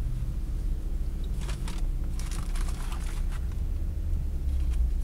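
Paper crinkling and rustling in bursts, about a second and a half in and again from about two to three and a half seconds in, over a steady low rumble.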